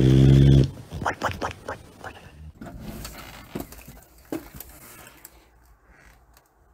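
A dog's low, drawn-out groan held on one pitch, followed by a few short scuffling and rustling sounds that fade out.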